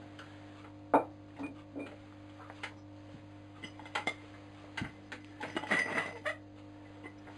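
Glazed ceramic pots knocking and clinking against each other as they are handled. The sharpest knock comes about a second in and a cluster of clinks near the end, over a faint steady hum.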